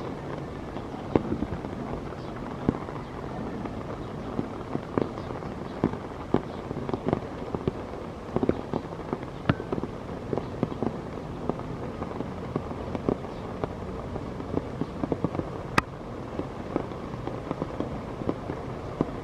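Steady rainfall with heavy drops tapping irregularly on plant leaves close by, and one sharper click near the end.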